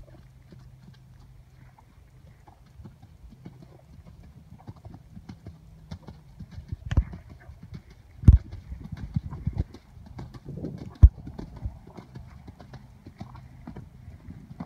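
Hoofbeats of a ridden horse moving over arena sand at a canter, a run of soft, irregular thuds. A few much louder thumps come near the middle, when the horse passes close.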